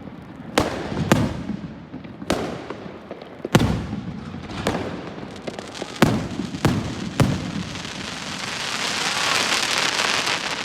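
Fireworks going off: a series of sharp bangs, about eight in the first seven seconds at uneven spacing, each with a short fading tail. About eight seconds in, they give way to a dense crackling hiss that swells steadily.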